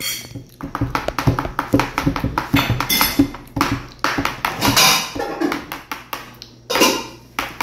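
Metal spoon tapping and scraping against a plastic plate as a child eats soup, with many quick clicks over the first few seconds and a few louder rushing noises later.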